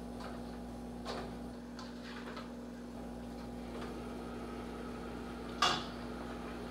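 Kitchen handling sounds over a steady low hum: a soft knock about a second in and a single sharp clack near the end.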